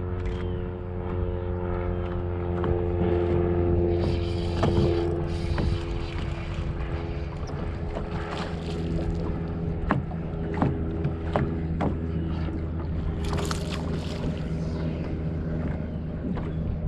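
A boat motor running steadily with a low, even hum, with scattered sharp clicks and knocks and a couple of brief hisses over it.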